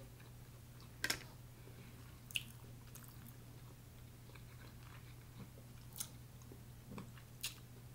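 Quiet eating of snow crab meat close to the microphone: soft chewing with about five short sharp clicks spread through, over a steady low hum.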